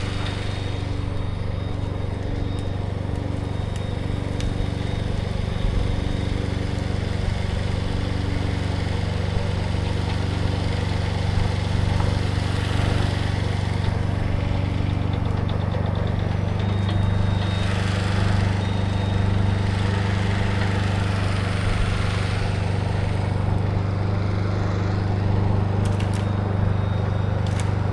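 An engine, started just before, running steadily at idle, then brought up to a higher steady speed about 16 seconds in.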